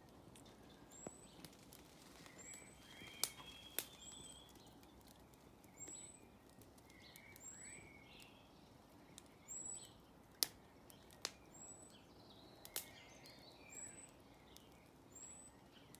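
Garden birds singing: a short, high, falling call repeated about once a second, with other brief chirping phrases. A few sharp cracks come from the wood fire burning in a metal fire pit, the loudest a little after three seconds and again at about ten seconds.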